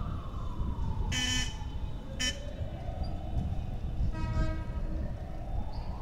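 Siren wailing, its pitch rising and falling slowly over several seconds, over a steady low rumble of wind and riding noise. A few brief higher-pitched sounds cut in about a second in, again near two seconds, and around four seconds.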